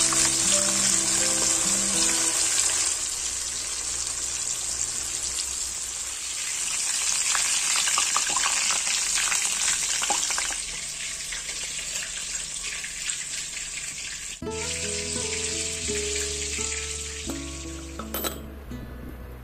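Whole coated fish deep-frying in hot oil in a metal wok: a steady, dense sizzle that eases off about ten seconds in. It stops abruptly about fourteen seconds in, leaving only background music.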